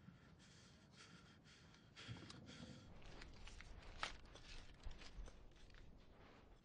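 Quiet handling sounds: faint scraping and rustling against a near-silent background, with a sharp click about four seconds in.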